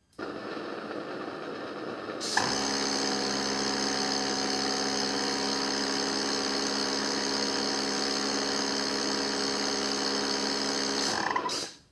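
Two small gas burners on a thermal-barrier-coating test rig. Gas hisses, then about two seconds in the flames light and burn with a steady rushing sound and a high whine. Near the end they cut off abruptly, with a brief pop.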